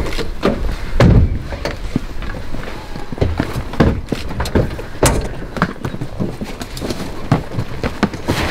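A run of irregular knocks, thumps and clicks from people and bags getting out of a van, several a second and none much louder than the rest.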